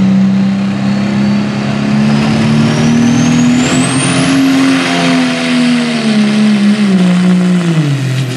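Light pro stock pulling tractor's turbocharged diesel engine at full load pulling the sled, with a high turbo whine that rises steadily in pitch over the first few seconds. The engine note climbs a little, then sags and falls away sharply near the end.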